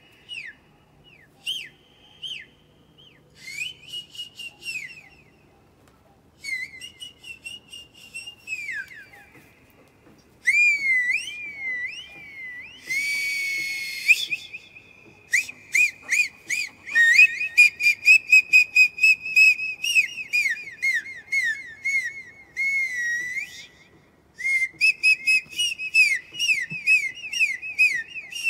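A dog head-tilt sound clip played from a tablet speaker: high-pitched whistles, chirps and warbling trills. It starts sparse, then turns rapid and almost unbroken from about halfway on, with one short hissing burst shortly before that.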